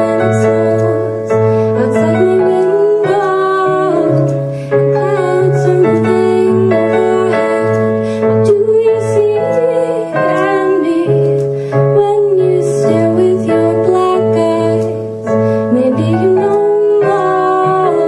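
A woman singing a melody while playing piano-sound chords on an electric keyboard, each chord held for a couple of seconds before the next.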